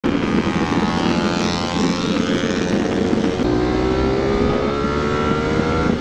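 Sport motorcycle with an aftermarket full exhaust running under way. The engine note holds steady, drops a little past halfway as it shifts up, then climbs slowly as the bike pulls again.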